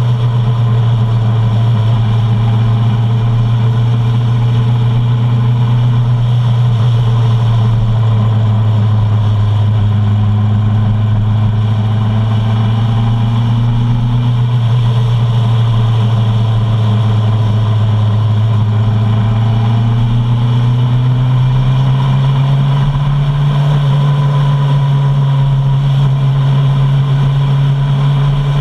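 Suzuki Bandit 650's inline-four engine running steadily while riding at road speed, with wind and road noise. The engine note dips slightly midway, then rises about three-quarters of the way through.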